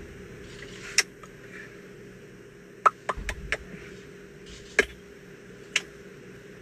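A handful of sharp taps over a faint steady hum: one about a second in, a quick run of four around three seconds, and two more near the end.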